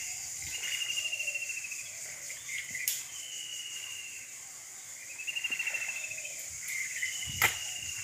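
A bird gives a fast, high trilling call four times, about every two seconds, each trill falling slightly in pitch, over a steady high-pitched insect drone. A single sharp knock comes near the end.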